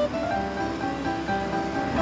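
Background music: a light tune of short, evenly paced notes, about five a second.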